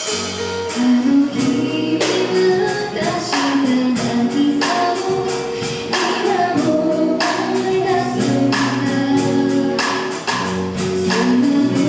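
Live pop-rock band: a woman singing the melody over electric guitar and a steady percussion beat.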